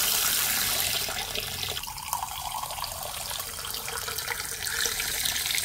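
A stream of water running into a mug, filling it.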